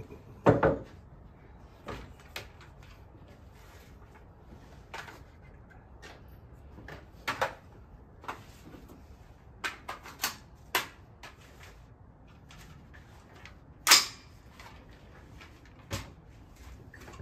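Scattered knocks and clacks of handling gear on a wooden shooting bench. A heavy knock about half a second in fits the metal stool being set down, and lighter clicks and clacks follow as the AR-15 rifle and its sling are handled. The sharpest, loudest clack comes about 14 seconds in.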